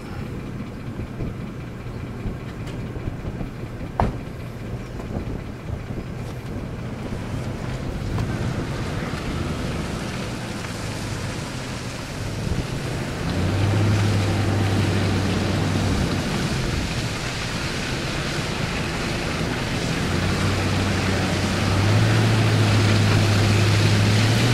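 Vehicle driving along: road and wind noise with a low engine hum that grows louder as it picks up speed, with a sharp click about four seconds in.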